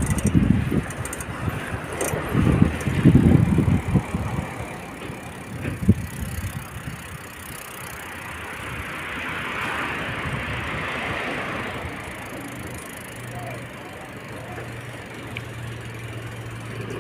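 Town street traffic. Loud low rumbles on the phone microphone in the first four seconds, a car passing about ten seconds in, and a steady low engine hum, a motor scooter at the crossing, from about twelve seconds on.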